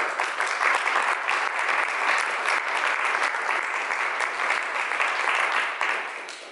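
Audience applauding, a dense patter of handclaps that dies away near the end.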